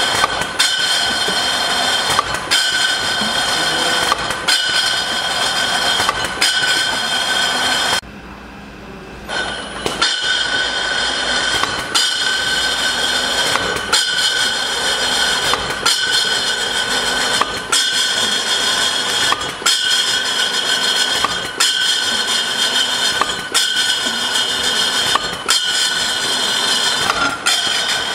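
Automatic bottle labelling machine running, with a steady mechanical whine and glass bottles clinking as they are carried through the label rollers, marked by regular knocks about once a second. The sound drops away briefly about eight seconds in.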